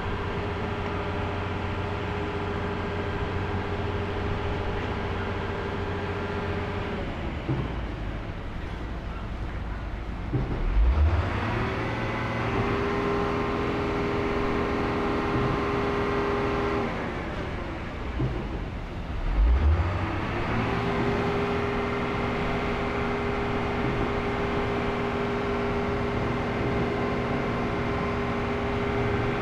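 Heavy construction machine's diesel engine running steadily. Twice it sags, then surges louder with a rising note, as if taking load and picking up speed again.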